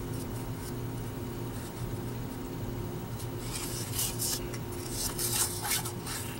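1990 Fleer baseball cards, thin cardboard, sliding and scraping against each other and against fingers as the stack is handled and a card is flipped over, in a cluster of light scratchy rustles from about halfway through, over a steady low hum.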